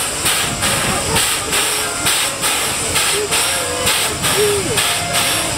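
Steam locomotive C11 207 standing on a turntable, hissing steam steadily, with the hiss pulsing evenly about twice a second. Voices of onlookers are faint underneath.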